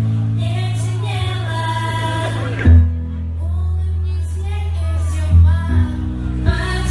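Pop song with a sung vocal over sustained bass notes.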